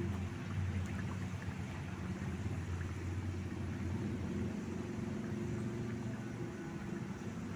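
Pan of chicken boiling hard over an open wood fire: a steady low bubbling rumble with a few faint ticks.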